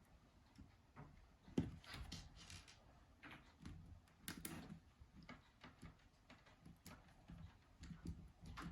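Faint scattered clicks and taps of small screws and a screwdriver on a Nokia 3310's plastic housing as the housing screws are put in, with one sharper click about a second and a half in.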